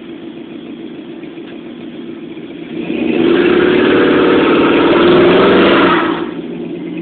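Chevrolet Monte Carlo donk idling, then about three seconds in the engine revs hard and the rear tyres spin and squeal in a burnout for about three seconds. The engine then drops back to a lower, steady note.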